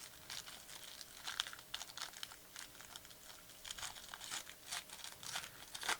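A trading card pack's wrapper being torn open and crinkled by hand: faint, irregular crackling throughout.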